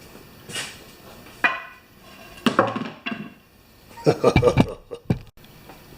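A handful of sharp knocks and metallic clinks, like tools or metal parts being handled, with a tight cluster of louder clattering knocks about four seconds in.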